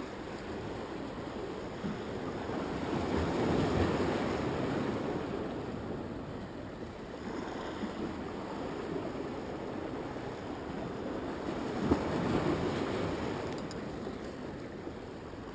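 Ocean surf washing in steadily, swelling twice: about four seconds in and again around twelve seconds, with a small knock near the second swell.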